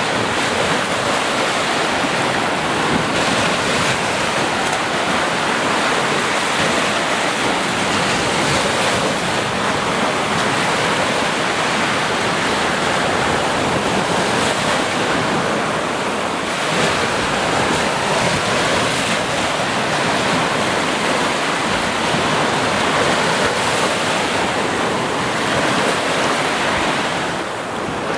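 Sea waves breaking and washing on a beach, a steady wash of surf with gentle swells in level, with some wind on the microphone.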